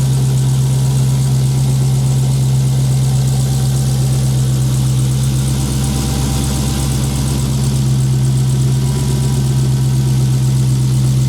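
Dodge Demon's supercharged 6.2-litre Hemi V8 idling steadily just after start-up, with a newly installed oil catch can; it sounds normal, and everything seems fine so far.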